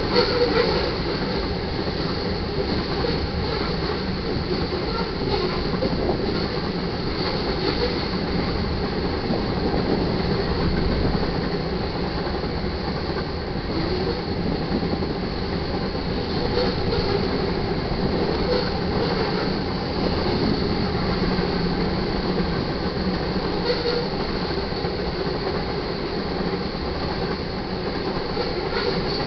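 Freight cars of a passing manifest train rolling steadily on the rails, with a thin high wheel squeal running over the rumble.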